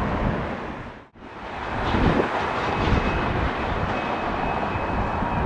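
Antonov An-124's four Progress D-18T turbofan engines running at taxi power: a steady rushing rumble with a faint high whine. About a second in it drops out briefly at an edit cut, then comes back.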